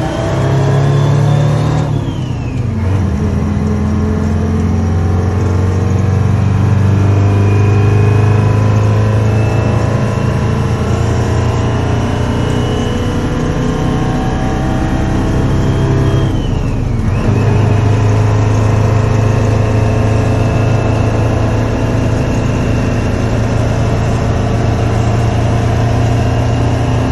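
Detroit Diesel 4-53, a four-cylinder two-stroke diesel, pulling the pickup up through the gears of a manual transmission. The engine note climbs, falls sharply at a gear change about two seconds in, climbs slowly again, and falls at a second shift a little past halfway.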